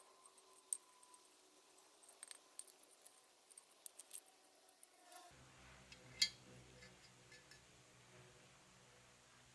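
Faint, scattered light clicks and clinks of small hard objects being handled. About halfway through, a low steady hum comes in, with one sharper click shortly after.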